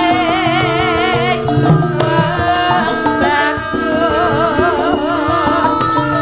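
Javanese sinden (female gamelan singer) singing a sustained, ornamented vocal line with strong vibrato over gamelan accompaniment, with hand-drum strokes keeping time.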